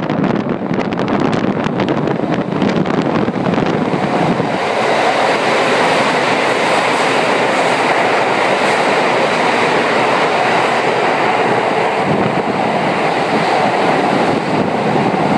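Toei 10-300 series electric commuter train moving through the station. Wheels click over the rail joints for the first few seconds, then the sound settles into a steady, loud rushing rumble of the train in motion.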